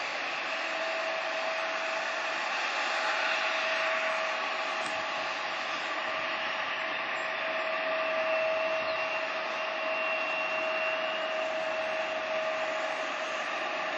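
Jet airliner engines running steadily: an even hiss with a held whine, and a fainter higher whine joining about halfway through.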